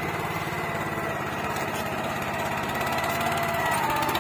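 Swaraj Code mini tractor's small petrol engine running steadily under load as it pulls a tined cultivator through the soil, with an even, fast engine beat and a thin steady whine above it.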